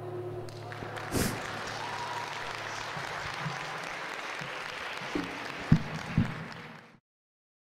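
Audience applauding after the song ends, starting about half a second in and cutting off abruptly near the end. A few knocks sound over the clapping, the loudest about six seconds in.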